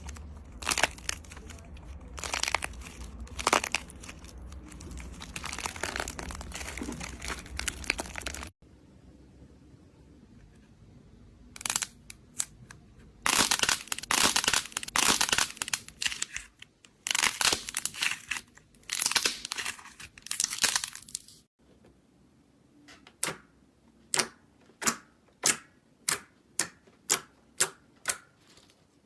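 Crunchy material being pressed and crushed in several cut-together clips: dense crackling and crinkling bursts, then near the end a run of short sharp crunches, evenly spaced about one and a half a second.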